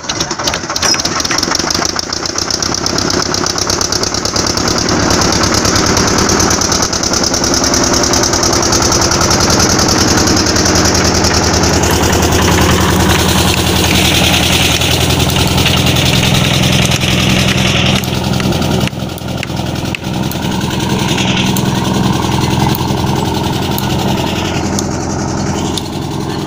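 Inboard engine of a wooden river ferry starting up and then running loud and steady.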